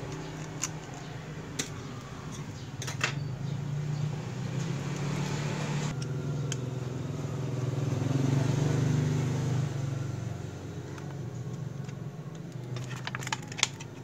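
A steady low mechanical drone, louder about eight to nine seconds in, with a few light clicks from a small screwdriver and the hard drive's metal caddy as the caddy screws are taken out.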